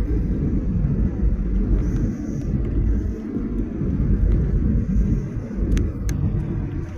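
Low rumble inside the cabin of a Boeing 737-800 airliner, wavering in level, with two brief sharp clicks about six seconds in.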